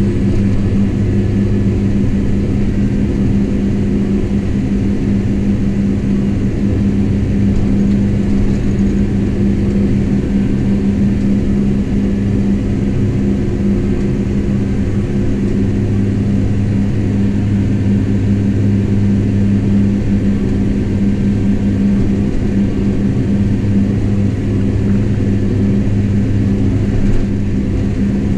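Kubota M7172 tractor's four-cylinder turbo-diesel engine running at a steady speed on the road, heard from inside the cab as an even, unbroken drone.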